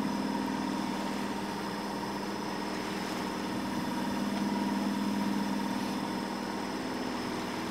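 Sailboat's engine running steadily under way: a constant drone that holds one pitch throughout, with a faint higher whine above it.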